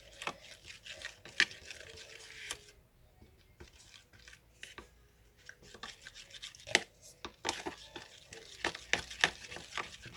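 Irregular small clicks, taps and scrapes of plastic containers and a utensil being handled while glitter is worked into slime glue.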